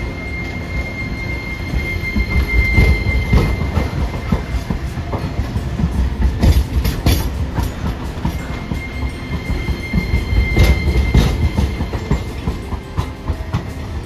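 Hiroden Green Mover Max low-floor articulated tram rolling slowly past through the station trackwork, its wheels rumbling on the rails. A thin, high wheel squeal rises twice on the curves, about two to four seconds in and again around ten to eleven seconds, and a quick run of clacks over the points comes about six to seven seconds in.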